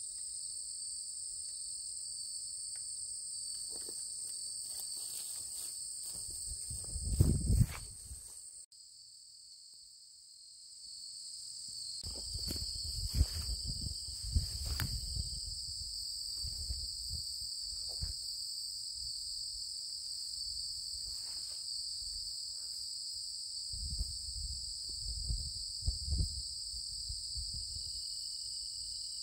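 Steady chorus of crickets and other insects at two high pitches. Low rumbles and thumps come and go on the microphone now and then.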